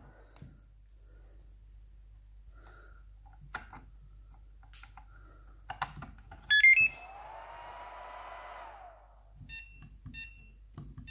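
Hota D6 Plus battery charger powering up: a quick rising run of startup beeps, then its cooling fan whirring up, running for about two seconds and spinning down. Then a string of short, quick key beeps as its buttons are pressed in a hurry; a few faint clicks come before the startup.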